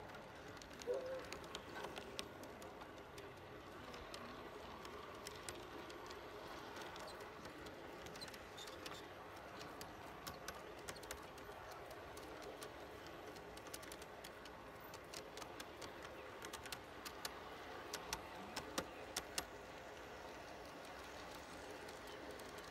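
G scale model train running along outdoor garden track, its wheels clicking irregularly over rail joints above a faint, steady rolling noise, with a cluster of louder clicks near the end.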